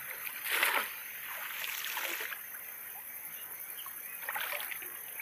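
Shallow river water splashing and sloshing as people wade and work cast nets, with a loud splash about half a second in and smaller splashes around two seconds and near the end over a steady trickle of moving water.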